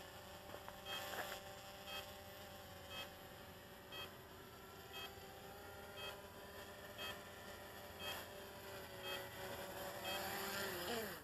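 Cheerson CX-20 quadcopter's motors and propellers humming faintly during a manual landing, with a short two-tone beep about once a second; near the end the hum grows a little louder and then drops in pitch as the motors wind down after touchdown.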